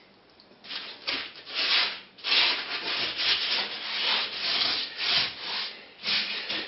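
A stiff bristle brush scrubbing back and forth over the rough, gritty concrete base of an empty floor-tile recess. The rasping strokes come about two to three a second and start about a second in.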